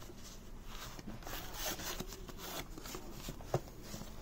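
Faint rustling and rubbing of a cardboard box insert and a thin packing-foam sheet being handled, with a small tap about three and a half seconds in.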